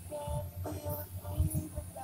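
Stepper motors of a home-built 3D printer whining in short steady tones that jump in pitch from move to move while it prints, over frequent low knocks and rumble from the machine.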